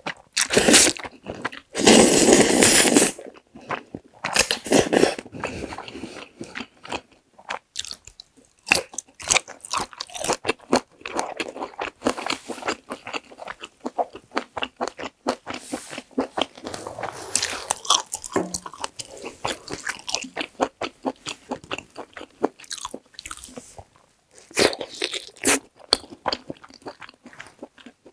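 Close-up eating sounds of Ottogi Jjajjaroni black-bean instant noodles: long loud slurps of noodles about two seconds in, again around five seconds and near the end, with steady wet chewing and crisp bites in between.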